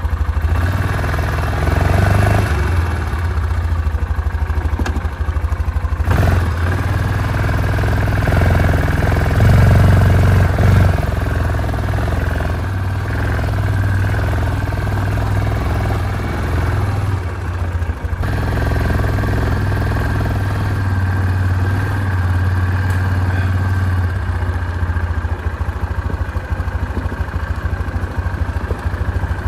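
Yamaha Grizzly 450 ATV's single-cylinder four-stroke engine running steadily during a ride, louder for a moment about ten seconds in.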